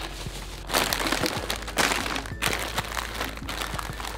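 A plastic shopping bag and snack wrappers crinkling and rustling as packaged snacks are pulled out and set down on a table, in a run of uneven rustles.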